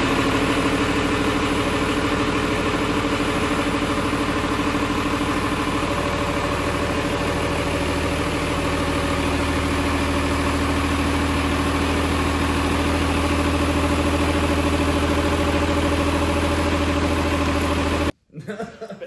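Land Rover Defender's turbocharged six-cylinder engine idling steadily after being started, then cutting off abruptly near the end.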